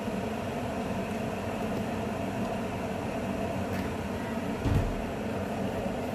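A steady machine hum with no change in pitch, and one short, dull thump about three-quarters of the way through.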